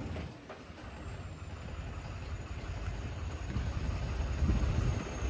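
Tractor engine running with a low rumble that grows louder toward the end.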